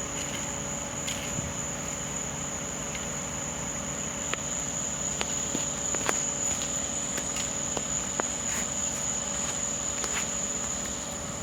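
Night insects trilling in one steady, unbroken high tone, with scattered light clicks and a faint steady hum beneath.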